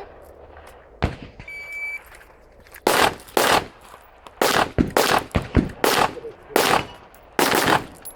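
A shot timer beeps once, and about a second later a PWS AR-type rifle starts firing: about a dozen sharp, echoing shots in quick pairs and short strings.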